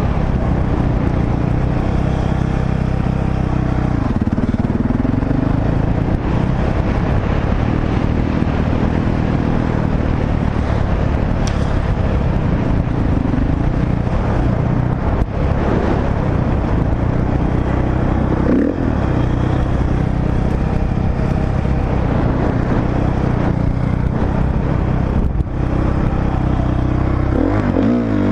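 Honda CRF four-stroke dirt bike engine running under way, its pitch rising and falling several times as the throttle is rolled on and off.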